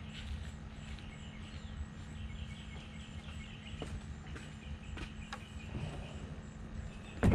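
Outdoor ambience: a low steady hum with faint bird chirping and a few light clicks. It ends with a sudden loud knock.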